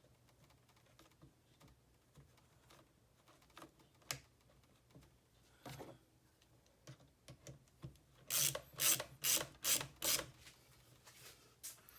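Scattered light clicks and taps, then a quick run of about six rasping scrapes, about three a second, a little past the middle.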